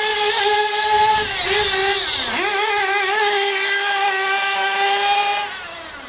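Small nitro glow engine of a radio-controlled buggy running flat out with a steady high-pitched whine. The pitch dips briefly about two seconds in as the throttle is lifted and climbs back. It falls away again just before the end.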